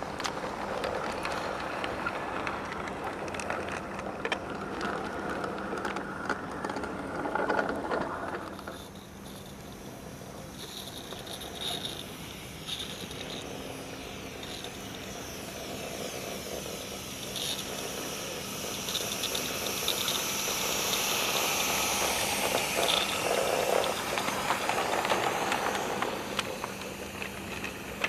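Roundhouse Fowler live-steam G-scale locomotive and its freight wagons running by on garden-railway track: a steady steam hiss, with no chuffing because the engine has no chuffer fitted, over the rattle and clicking of small wheels on the rails. The sound grows louder as the train comes up and passes, then eases off near the end.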